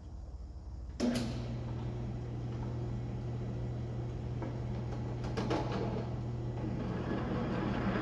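Drill press switched on about a second in, its motor running with a steady hum while a 31/64-inch bit is fed into a truck door hinge, boring the hinge out to take a new bushing. The bit scrapes and chatters through the cut.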